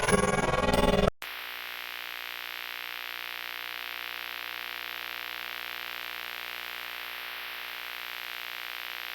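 A loud burst of music cuts off about a second in, giving way to a steady electronic drone of many held tones over a hiss, its level rippling slightly and evenly.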